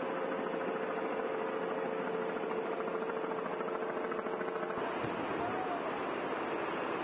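Floodwater rushing in a steady torrent out of a corrugated metal culvert pipe, with a steady hum underneath. About two-thirds of the way through, the hum stops and the sound changes abruptly.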